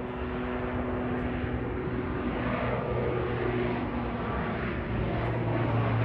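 Turboprop airliner's engines at takeoff power as it lifts off and climbs away: a steady propeller drone, with a tone that drops in pitch about three seconds in.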